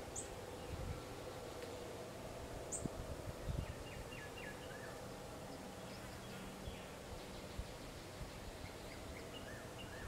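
Small songbirds chirping in short high calls and quick strings of notes over a steady background hum, with a few brief low thumps.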